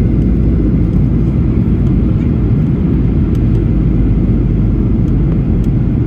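Steady low roar of a jet airliner, its level unchanging throughout.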